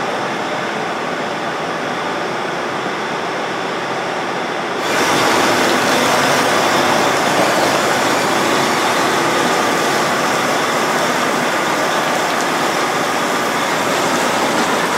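John Deere 9R track tractor's diesel engine running as it pulls a Brent 2596 grain cart. A steady mechanical noise that steps up louder about five seconds in.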